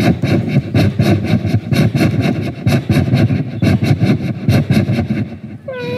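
A man imitating a steam train with his mouth: rhythmic chuffing at about five chuffs a second, then near the end a long held train-horn call.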